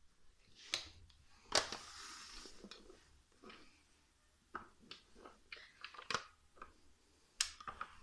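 Plastic floor nozzle of a 1980s Toshiba VC-222 vacuum cleaner being handled and turned over on fabric, with the motor off: scattered clicks and knocks, the loudest about a second and a half in, followed by a brief rustle.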